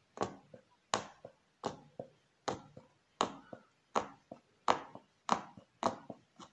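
Punch needle stabbing through fabric stretched taut in a wooden embroidery hoop, one sharp pop with each stitch. About ten evenly paced stitches, roughly one every two-thirds of a second.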